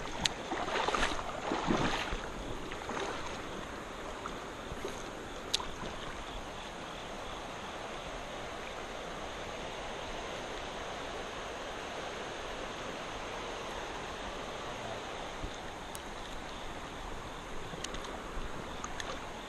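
Shallow creek water running steadily over rocks, with louder sloshing in the first few seconds and a single sharp click about five and a half seconds in.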